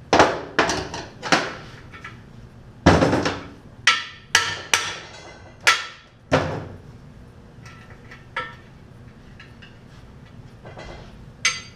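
Hammer blows on the cast-iron block of a 350 small-block Chevy, knocking out its plugs during teardown: about a dozen sharp metallic strikes that ring briefly, irregularly spaced, coming thick in the first six seconds and then only twice more.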